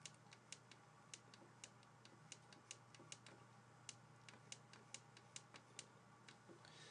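Faint, irregular clicks and taps of a pen stylus on a drawing tablet during handwriting, about two to three a second, over a faint steady hum.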